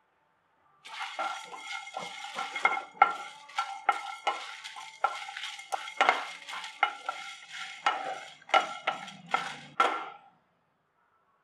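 Whole coriander seeds, dry red chillies and a cinnamon stick being stirred with a spatula in a dry nonstick pan as they roast: the seeds rattle and scrape across the pan in quick repeated strokes. The stirring starts about a second in and stops near the end.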